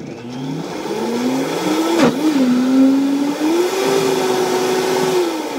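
Countertop blender motor running on a thick ice-cream smoothie. It speeds up at the start, sags with a sharp knock about two seconds in, climbs to a higher steady pitch a little after three seconds, and winds down near the end as it is switched off.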